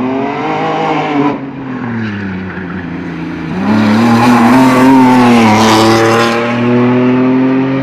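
Rally car engine revving through a cone course, its pitch falling and rising with throttle and gear changes. About halfway through it comes louder and higher as the car passes close, then holds with a few brief dips.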